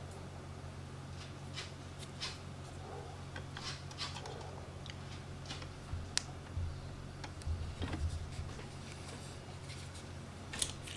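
Faint, scattered light clicks and rubbing as hands handle small connector parts and set one into a helping-hands alligator clip, over a steady low hum.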